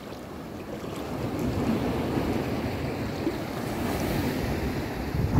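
Wind buffeting the microphone over breaking shallow surf, a steady low rumble that builds about a second in and swells louder just before cutting off suddenly near the end.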